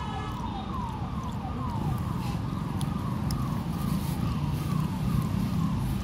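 Electronic siren wailing in quick falling sweeps, about two and a half a second, over a steady traffic rumble. The sweeps stop a little over two thirds of the way through.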